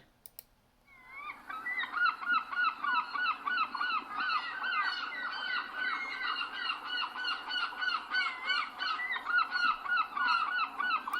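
A flock of geese honking, many calls overlapping in a dense chorus that starts about a second in, mostly short calls with an occasional longer one.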